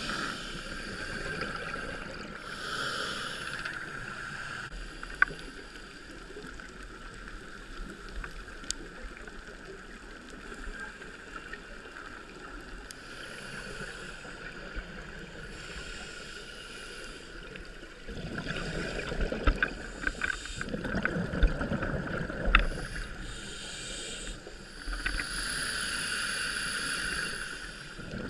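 A diver breathing through a scuba regulator underwater. There are hissing inhalations near the start and near the end, and about two-thirds of the way in a louder, crackling rush of exhaled bubbles.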